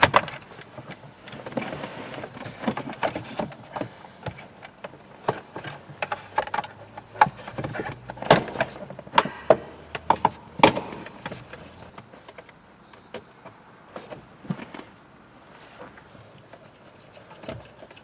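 Hard plastic car interior trim and heater ducting being handled and fitted by hand: irregular clicks, knocks and rattles, frequent for about the first twelve seconds, then sparser and quieter.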